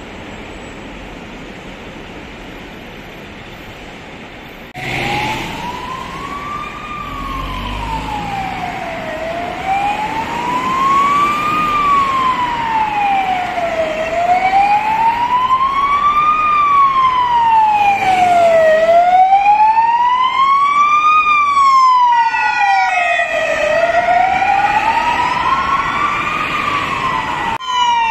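Steady city traffic noise, then about five seconds in an OMSZ ambulance siren starts on a slow wail, rising and falling about once every five seconds and growing louder as it approaches.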